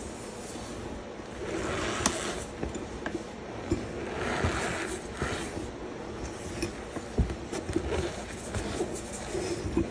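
Loose cornstarch heaped over gym chalk being pressed and crushed, giving a soft powdery crunching and rustling that swells twice, with scattered small crackles.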